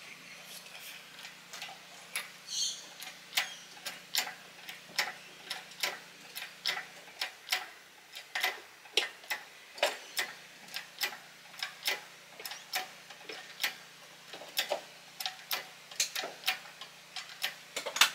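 Hydraulic engine hoist being pumped by hand to lift an engine and gearbox out of a car, clicking sharply with each pump stroke, about twice a second.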